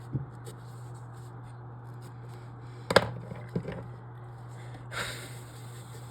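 Writing on a puzzle grid: a few light taps and a short scratching stroke about five seconds in, over a steady low hum.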